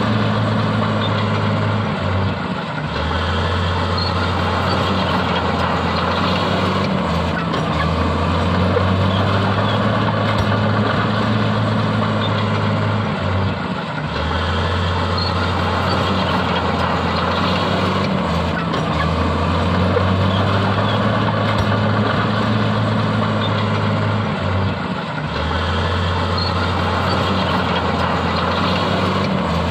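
Heavy diesel earthmoving machinery running steadily. Its low engine note shifts and dips briefly about every five or six seconds.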